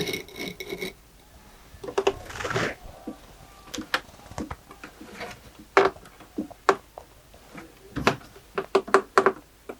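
Irregular sharp knocks and clatters of pieces being handled and set down on a wooden trolley base, with a brief high squeak at the very start and a quick cluster of knocks near the end.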